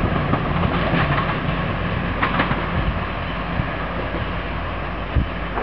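Class 222 Meridian diesel multiple unit's underfloor engines droning as the train draws away, the engine note fading after a second or so.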